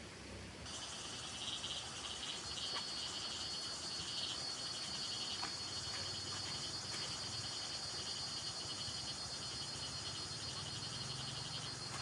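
Steady, shrill chorus of insects with a pulsing high trill, starting abruptly about a second in, with a few faint ticks over it.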